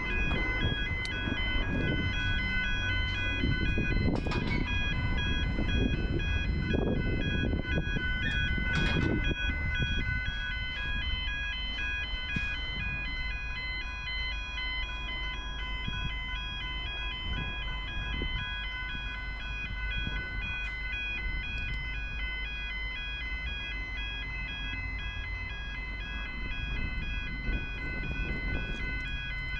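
Electronic level crossing warning bell ringing with a steady, repeating pattern of high dings, under a low rumble that dies down about ten seconds in.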